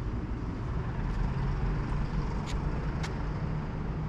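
Steady low rumble of a large vehicle running, with two short sharp clicks about two and a half and three seconds in.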